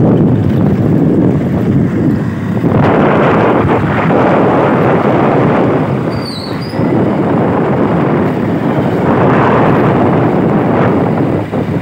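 Wind rushing and buffeting over the microphone of a phone carried on a moving motorbike, over road and engine noise; the rush swells and dips. A brief high chirp sounds about six seconds in.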